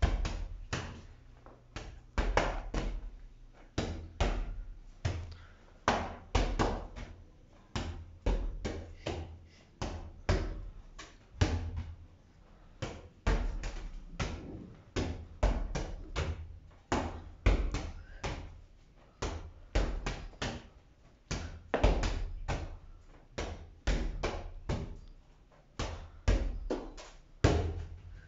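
A ball hit against a wall over and over in a volleyball passing drill: a run of thuds, about three a second, as it strikes the wall and comes back off the forearms and fingers. Each hit has a short echo.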